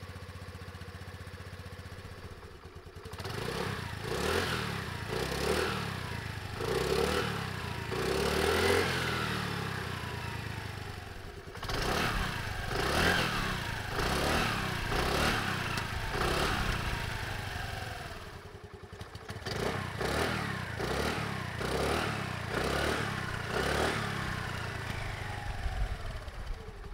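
2022 Honda NAVi's small single-cylinder four-stroke engine idling for about three seconds, then revved in a string of short throttle blips, each falling back toward idle. It settles back to idle briefly twice between the runs of blips.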